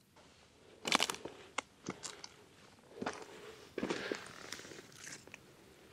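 Footsteps crunching and snapping over dry grass and brittle driftwood: a handful of uneven steps with cracks of twigs underfoot.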